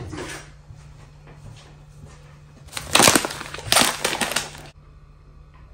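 Plastic tea pouch being handled: a couple of seconds of loud crinkling and crackling starting about halfway through, over a faint steady hum.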